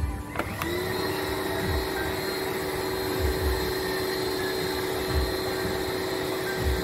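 A small electric motor starts about half a second in, rising briefly in pitch, then runs with a steady whine. Irregular low thumps sound underneath.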